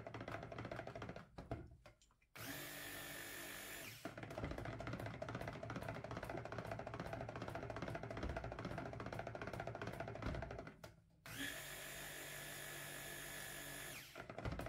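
Hand-held stick blender motor running in bursts in a jug of cold-process soap batter, blending it to a light emulsion. It starts about two seconds in, churns on through the middle, stops briefly near eleven seconds, then runs again until near the end.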